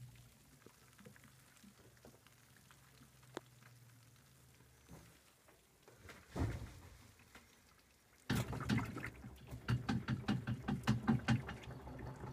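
2012 LG top-load washer: the motor's low hum fades as the spinning basket coasts to a stop, then a short thump. About eight seconds in a loud, uneven watery rush with rapid clicks starts abruptly.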